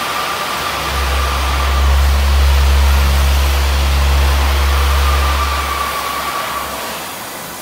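A vehicle running over a steady rushing noise: a strong low hum comes in about a second in and fades out near the end, with a faint thin whine above it at times.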